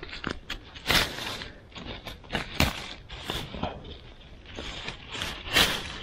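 Irregular crackles, snaps and scrapes of dry leaves and twigs being disturbed on the forest floor, the loudest near the end.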